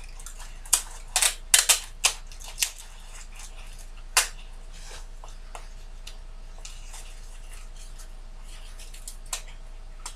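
Paper towel being folded and creased around a block of tofu: short crinkles and rustles, several in quick succession in the first few seconds, one about four seconds in and another near the end.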